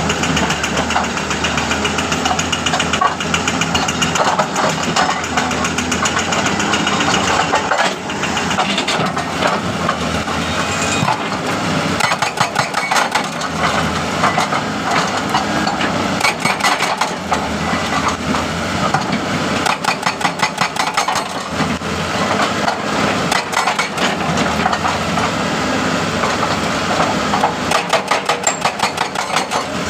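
Hitachi jackhammer hammering continuously in rapid repeated blows over a running engine, with a brief dip near eight seconds in.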